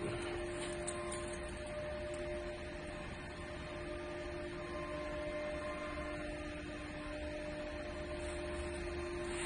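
Steady electrical hum of running machinery: two constant tones over a low, even drone.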